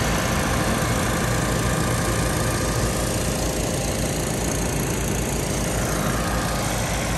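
Wood-Mizer portable sawmill's engine running steadily, with a low throbbing rumble under an even mechanical noise.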